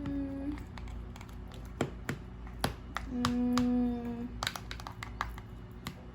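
Light clicks and taps of a spoon on a bowl while a child eats, with a steady hummed 'mmm' from a voice, brief at the start and longer about three seconds in.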